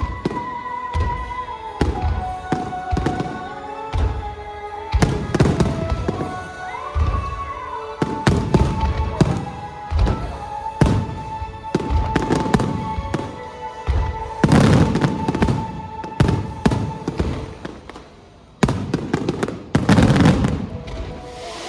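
Aerial fireworks shells bursting one after another, many booms and crackling cracks, with the densest volleys about fifteen seconds in and again near the end. Music with long held notes plays alongside.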